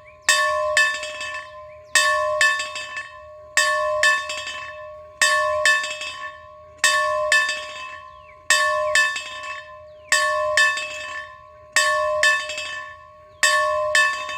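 A single bell rung over and over in groups of three quick strikes, about one group every second and a half, nine groups in all, each strike ringing on at the same pitch.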